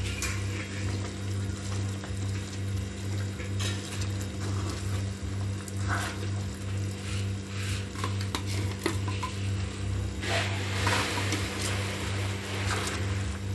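A spatula stirring fried chicken pieces through thick gravy in a nonstick pan, with irregular wet stirring and scraping noises that come thickest about ten seconds in and again near the end. A steady low hum runs underneath.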